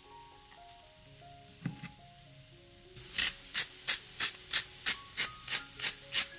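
Background music with a soft melody. About halfway through, a cooking utensil starts working food in steady strokes, about three a second, over the music.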